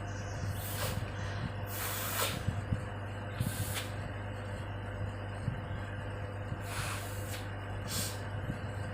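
A person blowing her nose into a handkerchief: about five short, forceful blasts of air through the nose, spaced a second or more apart.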